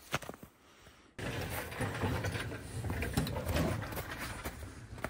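A few faint clicks, then about a second in a steady rolling noise starts suddenly: a steel mesh Gorilla Cart loaded with plywood sheets being pulled along a snowy trail, with the walker's steps in the snow.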